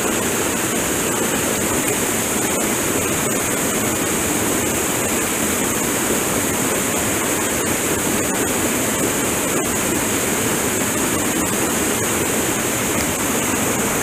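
Small cascade on a mountain trout stream pouring into a plunge pool: a steady rush of falling water.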